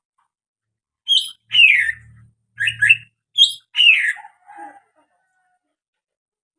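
Green leafbird (cucak ijo) calling: a run of sharp, loud notes, several sweeping quickly down in pitch, over about three seconds, trailing off into a few softer, lower notes.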